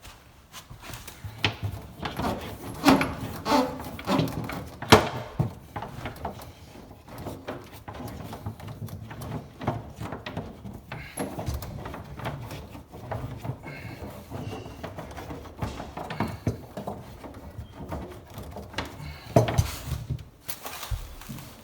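Irregular knocks, clicks and rattles of plumbing parts and tools being handled while a dishwasher air gap and its drain hose are fitted under a sink, busiest in the first few seconds and again near the end.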